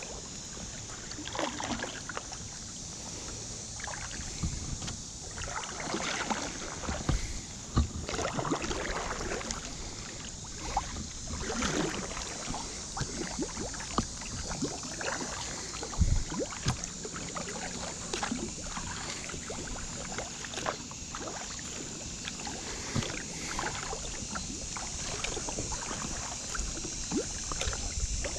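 Kayak paddle strokes: the blades dipping and splashing in the water one after another, with drips and water noise between, and a few sharp knocks standing out.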